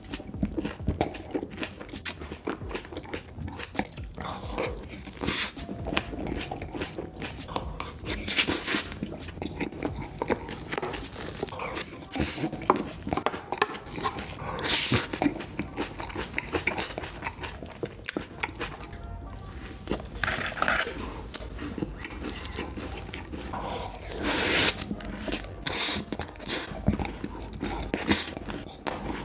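Close-miked eating: crunching bites and chewing of food, with sharp crackly crunches every few seconds between quieter chewing.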